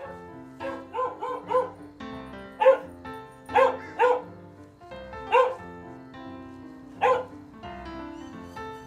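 A small dog barking in short, sharp, high-pitched yaps: a quick run of three about a second in, then about six more spaced out over the next several seconds. Background music plays underneath.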